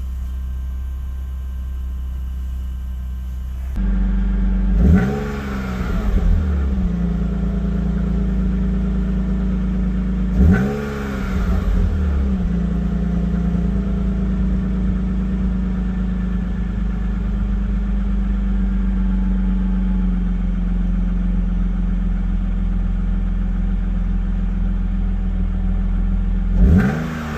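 BMW 528i E39's 2.8-litre straight-six idling shortly after a cold start, after several days unused. The throttle is blipped three times, briefly, each rev rising and falling back to idle: about five seconds in, about ten seconds in, and at the very end.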